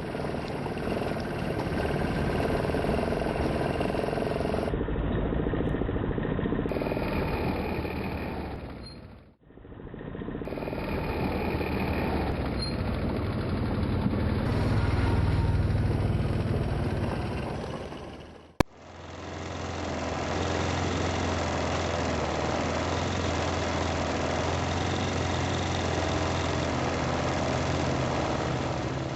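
ATV engine running while riding. The sound drops out briefly twice, about a third and about two thirds of the way through.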